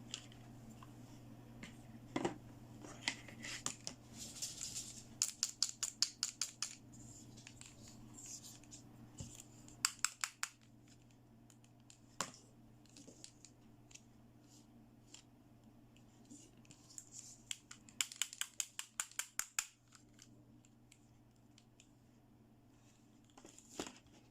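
Toy playset packaging being opened and handled at close range: scratching and tearing, with two runs of rapid small clicks and scattered single clicks.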